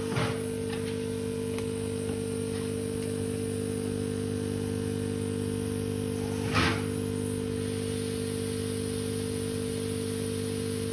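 Steady electric hum with several fixed tones, broken by two short rushing bursts, one just after the start and one about two-thirds of the way through.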